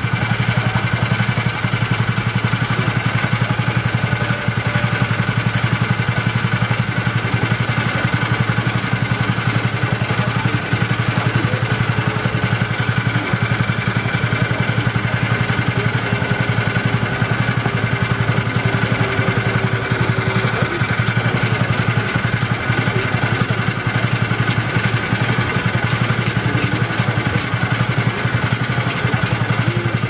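A small engine running steadily at idle, an even low hum. In the second half, quick scraping clicks come in as a parrotfish is scaled on a wooden chopping block.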